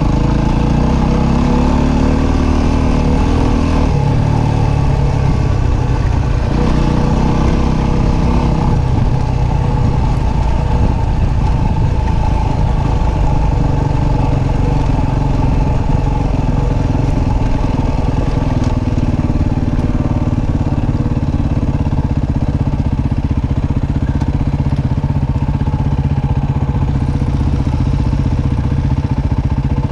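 Dirt bike engine running under the rider, loud and steady, its pitch rising and falling with the throttle over the first few seconds.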